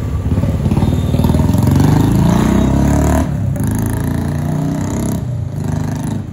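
Overhead electric power line arcing and burning: a loud, throbbing low buzz that swells about a second and a half in and eases off just after three seconds.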